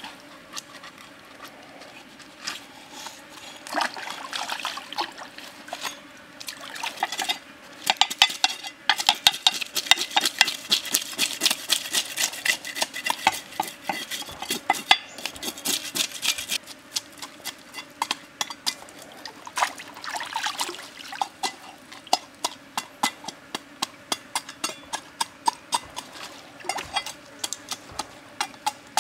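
Cleaver blade scraping the scales off a whole fish on a wooden chopping block. The strokes are few at first, then after several seconds come quick and regular at about three a second, over a faint trickle of stream water.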